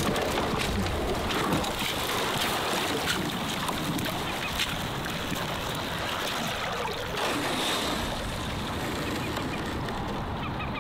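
Loaded plastic ice-fishing sled pushed through shallow meltwater at the edge of the ice, sloshing and splashing the water, with scattered knocks and a steady rush of wind on the microphone.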